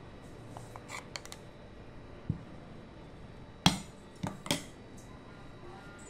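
A steel ladle clinks and knocks against a stainless-steel serving vessel and plate while chutney is served. There are a few light clicks about a second in and a dull knock, then three sharper metallic clinks past the middle, the first the loudest.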